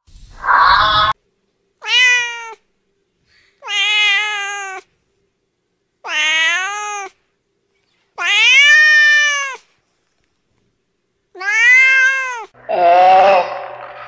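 A domestic cat meowing five times, each meow a drawn-out call that rises and then falls in pitch, a second or so long, with gaps of one to two seconds between them. A short rough sound comes in the first second, and a lower, rougher call starts near the end.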